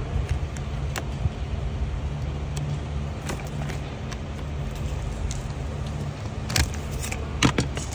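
Sharp clicks and knocks of plastic wiring connectors and a hand tool being handled behind a car's dashboard, the loudest two near the end, over a steady low machine hum.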